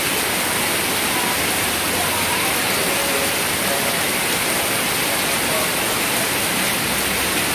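Heavy rain falling steadily onto the road and wet pavement, a dense, even hiss of water.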